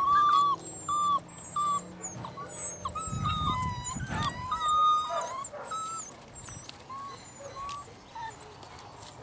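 Several young puppies whining and squealing: many short high-pitched cries, some overlapping, busiest in the first half and thinning out toward the end.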